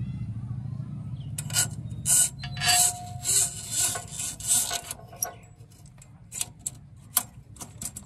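A sheathed metal control cable rubbing and scraping against engine fittings as it is pushed into place by hand: a run of scrapes and rustles, then several sharp clicks. A low steady hum underneath fades out about halfway.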